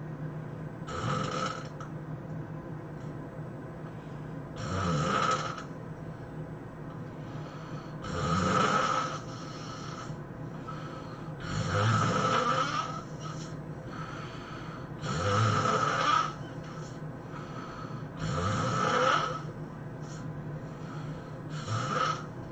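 A sleeping person snoring loudly and rhythmically, seven snores about three and a half seconds apart, each lasting a second or so, over a steady low hum.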